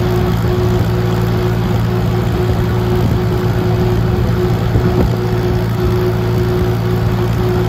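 Vintage tractor engine running at a steady speed while the tractor drives along, a constant drone with no change in pace.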